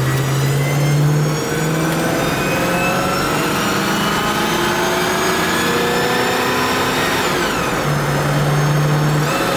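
1978 Mercury Colony Park's 460 big-block V8 pulling the wagon along the highway, heard from inside the cabin. Its pitch climbs steadily for several seconds, drops sharply about seven seconds in, then rises quickly again near the end.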